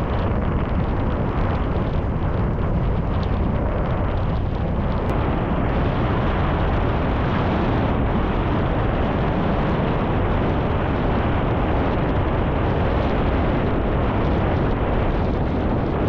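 Steady heavy wind buffeting on the microphone, mixed with the rush of water under a windsurf board sailing at speed.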